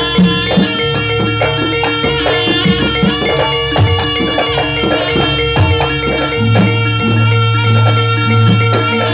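Jaranan dance music played live: kendang hand drums beating under a high, ornamented reed-like melody and a steady drone. A deep bass note sets in and holds from about two-thirds of the way through.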